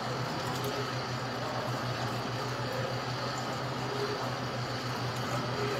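Tap water running steadily into a metal strainer of dried flower petals over a steel sink, over a steady low hum.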